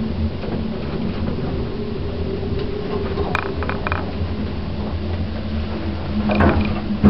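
1980s Stannah passenger lift running, a steady hum over a low rumble. A few short clicks come about halfway through and a louder knock near the end.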